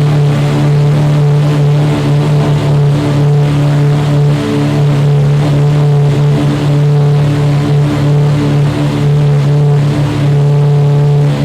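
Ferrari FXX's V12 engine running loud and steady, its pitch held nearly constant throughout.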